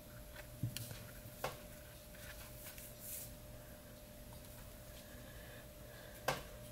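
Quiet handling noise as a leather drawstring cord is worked through a leather pouch, with a few small clicks and taps, the sharpest about six seconds in, over a faint steady hum.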